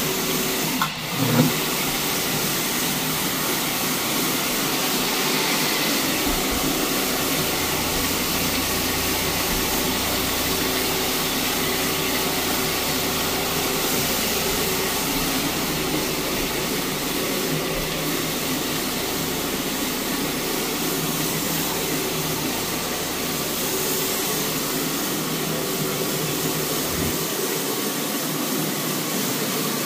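Low-speed (175 rpm) rotary floor machine running steadily, its motor humming as the spinning pad scrubs the carpet for low-moisture encapsulation cleaning. A couple of brief knocks come about a second in.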